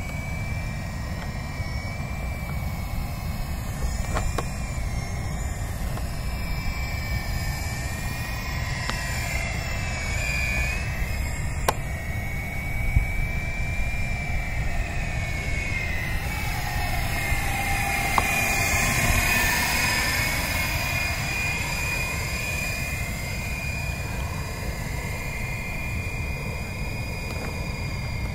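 Radio-controlled coaxial helicopter in flight, its whine wavering up and down in pitch as it manoeuvres and passes closer about two-thirds of the way through, over a steady low rumble of wind on the microphone.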